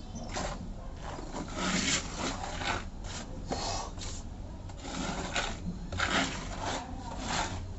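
A blade scraping texture putty across a wall in repeated rough strokes, about a dozen, unevenly spaced.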